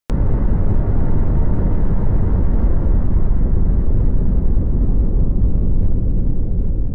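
Deep, steady rumbling drone, a cinematic sound effect that starts abruptly and holds at an even level.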